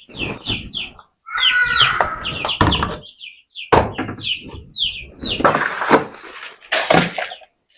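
Chickens calling: runs of short, high, repeated calls, with one lower call about a second and a half in. Stretches of rustling noise come in the second half.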